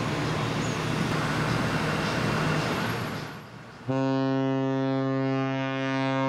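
Steady outdoor noise, then about four seconds in a large ship's horn starts a long, steady blast.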